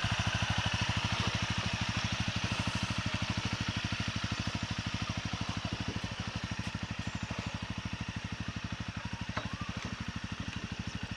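Motorcycle engine running steadily at low revs, an even, rapid low thumping pulse that fades slightly toward the end.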